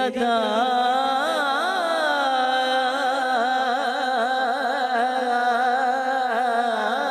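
A man's voice singing a naat into a microphone, drawing out a long, wavering sung vowel with ornaments and then holding it steady, over a steady low drone.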